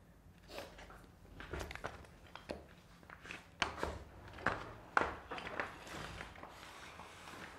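Irregular scuffs, knocks and crunches as a limp body is dragged by the legs across a floor strewn with broken chips, with footsteps among them; the sharpest ones fall around the middle.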